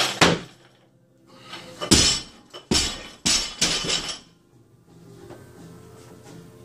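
A lifter's feet slamming onto the platform as he catches a 60 kg snatch, then, about two seconds in, the barbell with bumper plates dropped to the floor, bouncing three more times with metallic clatter, the bounces coming quicker and quieter. Faint music underneath.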